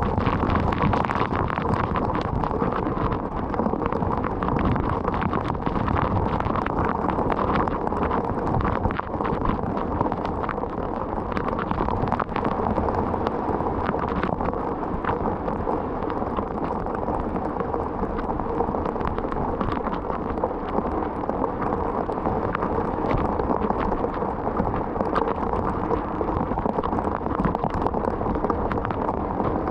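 Heavy rain pelting a moving car: a dense, steady patter of drops striking the body and glass over a constant rumble of tyres on a wet road.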